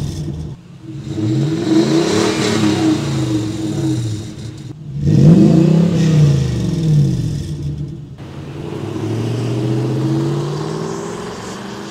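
2002 Toyota Tundra's 4.7 L V8 through an MBRP 3-inch resonator-back exhaust, revved twice while standing, each rev rising and dropping back. About eight seconds in it changes to the same V8 on its stock exhaust, the truck pulling away and accelerating, its note rising and then fading as it moves off.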